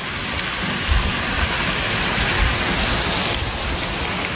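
Steady hiss of water spraying from a garden fountain jet, louder in the middle and dropping off suddenly about three seconds in, with a low rumble underneath.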